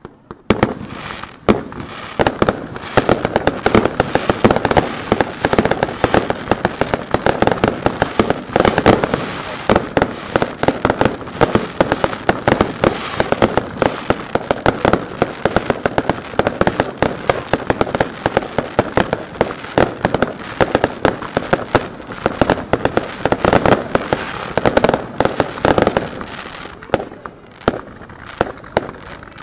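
Fireworks barrage: many shells bursting in quick succession as a dense, continuous stream of sharp bangs and crackling, which thins out near the end.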